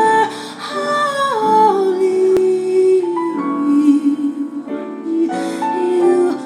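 Music with singing: several held notes sounding together in harmony, moving in slow steps from one chord to the next, in a gospel-like style.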